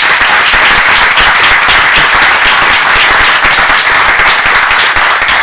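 Audience applauding: many people clapping together, steady and loud.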